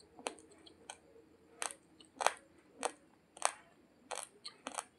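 Raw, uncooked basmati rice being chewed. The hard grains give sharp, short crunches between the teeth, about eight of them at a fairly even pace, a little under a second apart.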